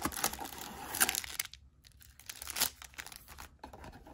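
Crinkling foil wrappers of Bowman Chrome trading-card packs and rustling cardboard as the packs are slid out of their box. The sound comes in irregular bursts, with a brief pause about halfway through.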